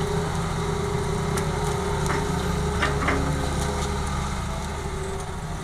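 A heavy machine's diesel engine running steadily, with a few sharp knocks in the middle, typical of rocky soil striking steel during loading.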